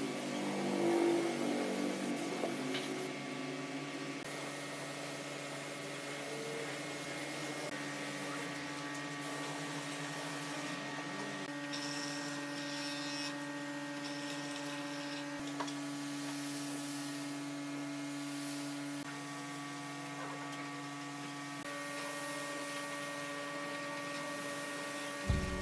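Compressed-air spray gun hissing as it sprays finish, the hiss easing off briefly a few times, over a steady hum with several held tones.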